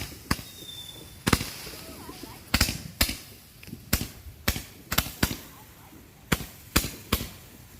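Multi-shot consumer firework cake firing its finale: a string of sharp bangs at uneven spacing, about one to two a second, some with a short echo after them.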